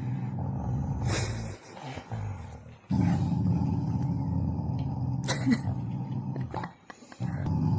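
A dog growling in a low, continuous rumble, broken off abruptly twice, with a few sharp clicks in the gaps.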